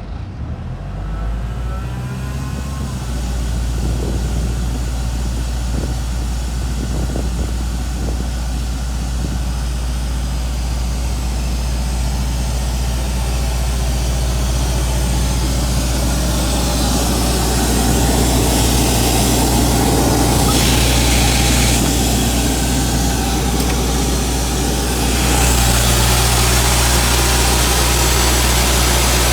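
Atlas Copco XAS 137 portable screw compressor with its Deutz diesel engine, coming in sharply and settling into a steady low running hum. About halfway through it grows louder, with more hiss, and it steps up again a few seconds before the end, as the engine and air end take on more speed or load.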